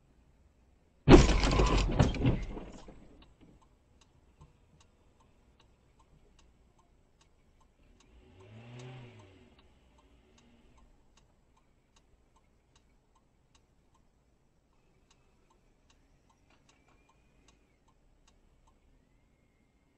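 A sudden loud bang of a car collision about a second in, with crunching noise dying away over about two seconds. Faint regular ticking follows, with a short sound that rises and falls in pitch near the middle.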